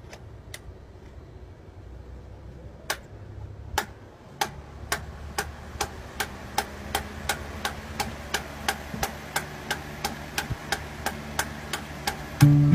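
Electric stand fan ticking as it runs, over a low motor hum. A few scattered clicks speed up to a steady run of about three a second. Guitar music starts near the end.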